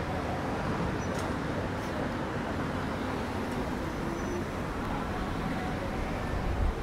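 Steady road traffic noise from passing vehicles, with a couple of faint clicks about one and two seconds in.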